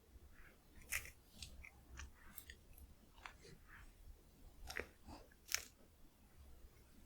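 Close-miked chewing of crispy cone-shaped corn snacks (Kkokkal-cone): irregular crisp crunches and small clicks, the loudest bites about a second in and about five and a half seconds in.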